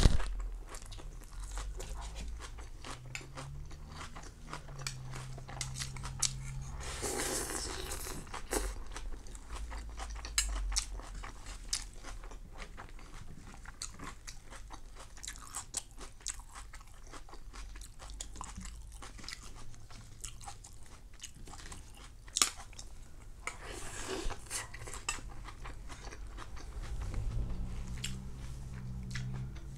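A person chewing and crunching crispy rice pancake (banh xeo) close to the microphone, with a stream of irregular crisp crackles and bites.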